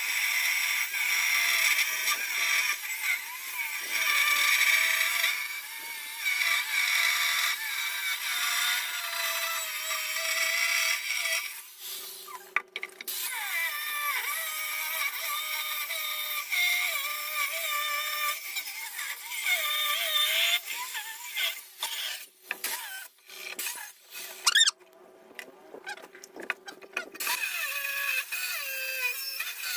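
Power tool whining over a hiss while working granite countertop stone, its pitch wavering up and down with the load. It drops out briefly about twelve seconds in and again several times in the last third before starting up again.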